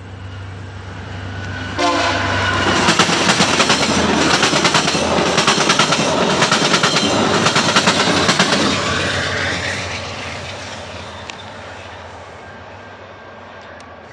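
Passenger train passing at speed close by: its horn sounds about two seconds in, and the wheels clatter over the rail joints as the locomotive and cars go by. The sound then fades as the train moves away.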